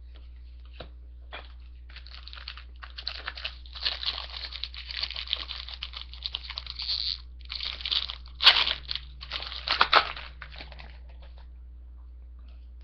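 A hockey card pack wrapper being torn open and crumpled: a few light clicks, then several seconds of crackling and crinkling, loudest in two sharp crunches near the end.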